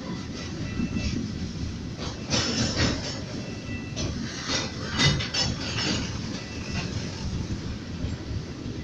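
Ferromex freight train rolling past over a steady rumble, its wheels clacking over the rail joints in irregular clusters, with a faint thin wheel squeal.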